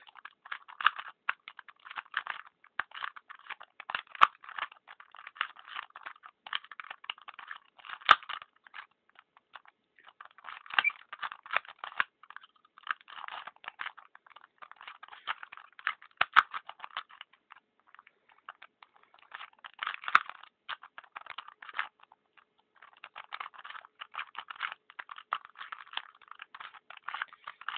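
Rapid plastic clicking and clattering of a 2x2 pocket Rubik's cube's layers being turned fast in a speed solve. It comes in quick flurries broken by a few short pauses, with an occasional sharper click.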